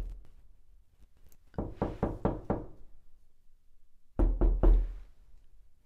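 Heavy, rapid knocking on a door in two bouts of about five blows each, the second about two seconds after the first.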